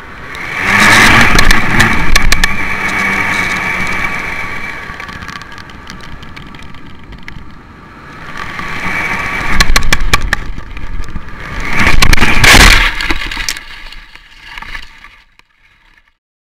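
Wind noise on the microphone of a camera hung from a kite line, swelling in loud gusts about a second in, around ten seconds and again about twelve seconds in, with scattered clicks and rattles, then fading out near the end.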